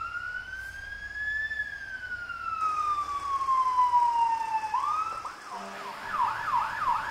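Emergency vehicle siren in a slow wail that rises briefly and then falls for about three seconds. It then switches to a fast yelp of quick up-sweeps, about three a second.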